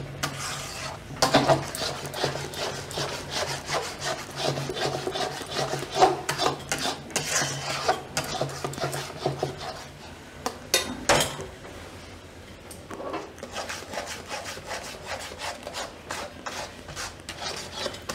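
Metal spoon scraping and stirring a thick milk-and-milk-powder mixture in a metal kadai, an irregular run of rasping strokes against the pan, with a few sharper scrapes. The mixture is being kept moving so it does not stick to the bottom as it cooks down to mawa.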